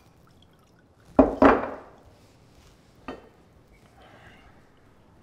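Liquor poured from a glass decanter into a glass, with two loud sharp glass knocks a quarter second apart just over a second in and a lighter clink near three seconds.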